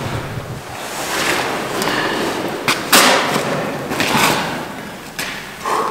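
Rustling, scraping and knocking of outdoor gear as a backpack is handled and set down on a hard floor, with one sharp knock about three seconds in.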